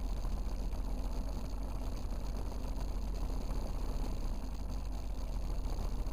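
Powered parachute engine idling steadily on the ground, a constant even running with no change in speed.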